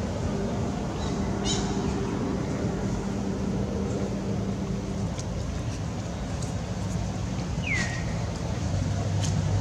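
Steady outdoor background with a low, even engine-like hum that shifts slightly in pitch about halfway through. Near the end comes one short falling whistle, like a bird call.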